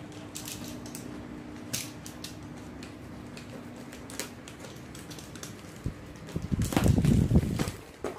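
Utility knife scratching through packing tape on a plastic-wrapped cardboard box, with scattered small scrapes and clicks. Then a loud rustle and crackle of plastic wrap and cardboard as the box flaps are pulled open, starting about three-quarters of the way through.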